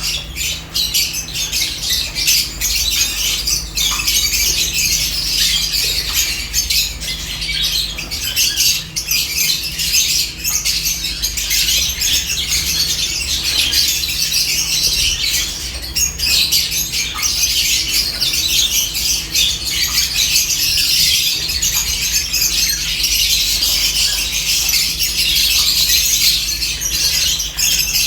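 A flock of lovebirds chattering and squawking nonstop, many high chirps overlapping, with scattered sharp clicks among them and a faint steady low hum underneath.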